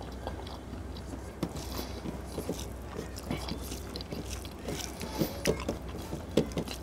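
Eating by hand: a person chewing a mouthful, and fingers mixing rice with chicken curry on a steel plate, heard as a scatter of small irregular clicks.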